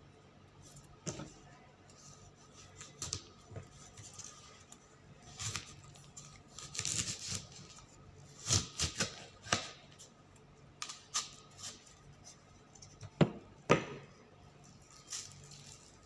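Chef's knife cutting through a dragon fruit's thick skin and tapping on a wooden cutting board: irregular slicing sounds and knocks, with two sharp knocks about half a second apart near the end.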